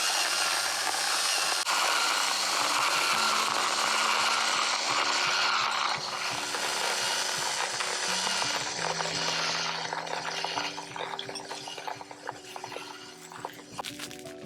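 Electric coffee mill grinding beans: a dense grinding noise that starts suddenly and holds for about ten seconds, then thins to scattered crackles and clicks as it fades. Soft background music with held notes plays underneath.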